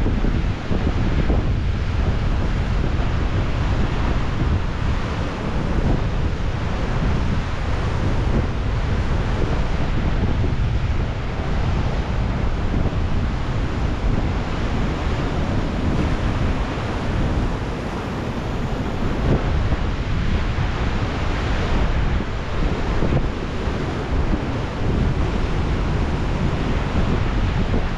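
Ocean surf breaking and washing over rocks, a continuous surging rush with wind buffeting the microphone.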